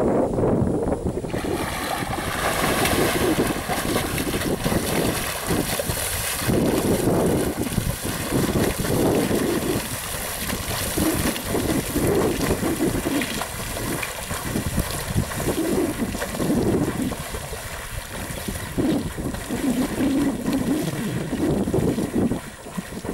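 Small radio-controlled boat's motor whining as it runs across the water, throwing spray. Wind buffets the microphone throughout.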